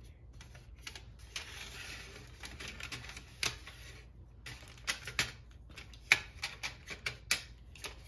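Pencils and a metal pencil tin being handled: a rustle for a second or two, then a series of sharp clicks and clacks as pencils knock against the tin and each other.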